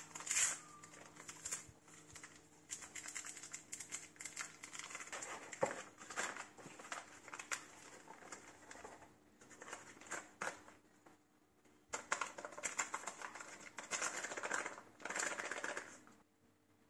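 Paper and foil food packaging rustling and crinkling in the hands, with irregular small clicks and taps, as a seasoning sachet is torn open and white starch is squeezed and shaken from its paper packet onto minced meat in a bowl. The rustling is loudest about twelve to sixteen seconds in.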